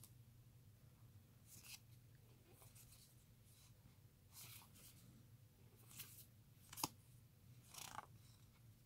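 Faint handling of trading cards: about six soft, brief swishes as the cards are slid one behind another in the hand.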